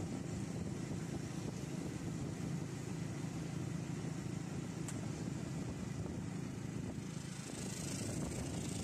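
Steady low rumble of a vehicle driving along a road: engine and tyre noise.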